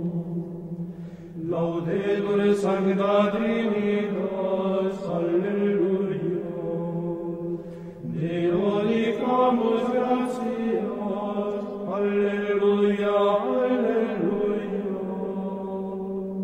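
Choral chant music: voices singing slow, sustained lines over a steady low held note, with a new phrase swelling in about a second and a half in and again about eight seconds in.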